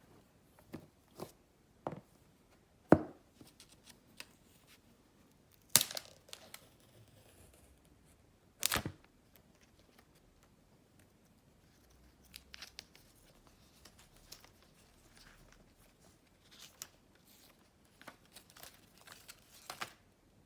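Unboxing an iPhone 12 Pro Max: the box's paper pull-tab seal strips tear off and the packaging is handled. Scattered sharp snaps and short tearing sounds, the loudest about three, six and nine seconds in, with lighter rustling and clicks between.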